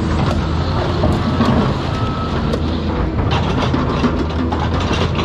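Heavy excavator's diesel engine running steadily, with irregular sharp clanks and crunches of metal as a car body is torn apart.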